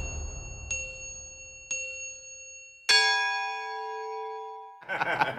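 Bright chime dings three times, about a second apart, each ringing on. About three seconds in, a louder, fuller chime with many tones rings out and cuts off suddenly near the end.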